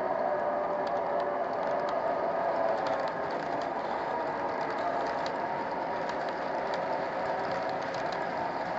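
O-gauge model train, Lionel box cars behind Williams F-3 engines, rolling past on the layout's track: a steady rolling rumble with faint, irregular light clicks.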